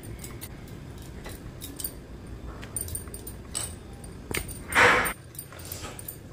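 Wooden rolling pin rolling out paratha dough on a granite counter, with scattered light clicks and clinks of bangles. One short, louder noisy sound comes a little before the end.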